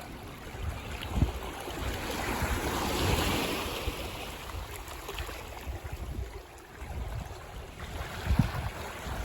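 Ocean waves on a beach: one wave's wash swells to a peak about three seconds in and then fades back to a steady surf hiss. There are a couple of short low thumps, one near the start and one near the end.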